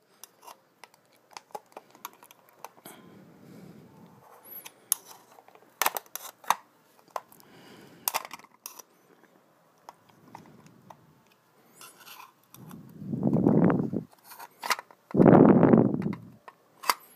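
Small metallic clicks and scrapes of a flathead screwdriver being twisted under the crimped metal rim of a 1985 Porsche 944 temperature and fuel gauge, prying the lip up bit by bit. Near the end come two louder rushes of air, each about a second long.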